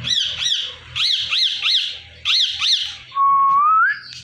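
Indian ringneck parrot giving quick runs of short, repeated calls, about three a second in groups, then one long whistle rising in pitch near the end.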